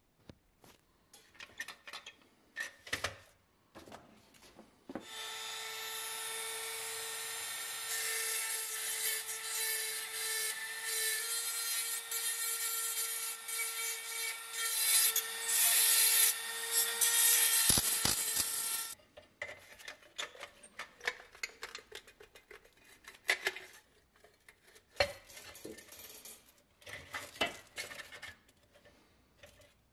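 Small handheld rotary tool running with a steady whine while its bit grinds at a crimped tab on a rusty tin toy body, for about fourteen seconds. The grinding gets louder for its last few seconds, then the tool cuts off. Scattered clicks and scrapes of metal parts being handled come before and after.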